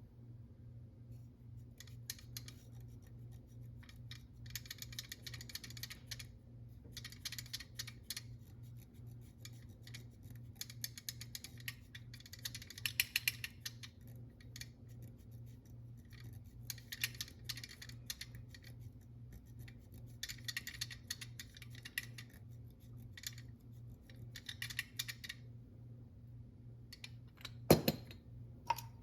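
Scratchy rubbing and fine clicking in short bursts with pauses, as a lead test swab is scrubbed against the metal grinding mechanism of a pepper grinder. A single sharp knock near the end, over a steady low hum.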